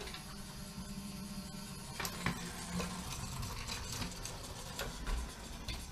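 Faint steady electrical hum from the model layout's electrics, with a few light clicks and knocks.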